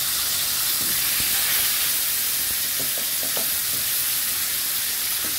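Whole red snapper frying in hot cooking oil in a non-stick pan, a steady sizzle. A few light taps about halfway through as a third fish is laid in the pan.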